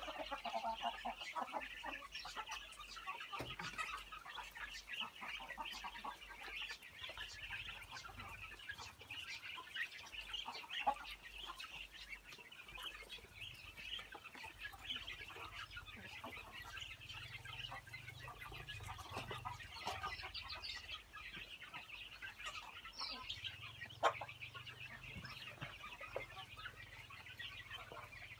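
A flock of ducklings peeping continuously in many overlapping short high calls while they feed, with a couple of sharper clicks around the middle and near the end.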